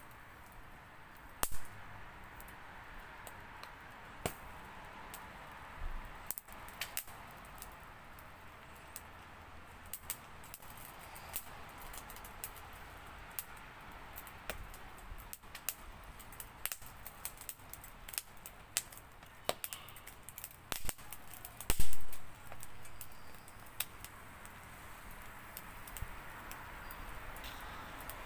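Wood fire crackling in a small secondary-combustion wood stove, with frequent sharp irregular pops over a steady rush of flame. One much louder pop about twenty-two seconds in.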